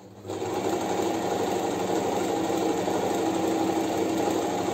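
Janome 393 sewing machine starting up just after the beginning and running steadily, sewing a straight stitch through fabric.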